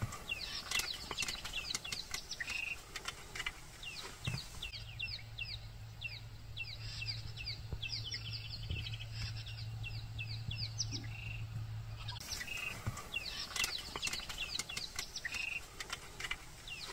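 Birds chirping: a busy run of short, quickly falling chirps, several a second, with a steady low hum for several seconds in the middle.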